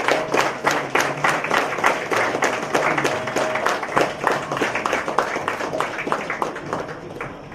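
Audience applauding with many hands clapping, the clapping thinning out and stopping near the end.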